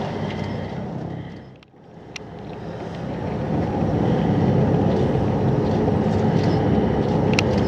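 Wind rumbling on the microphone over boat and sea noise; it drops away briefly about a second and a half in, then builds back, with a couple of faint clicks.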